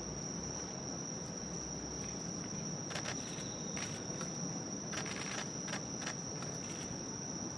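Press camera shutters clicking, one at a time and in a quick burst about five seconds in, over a steady high-pitched whine.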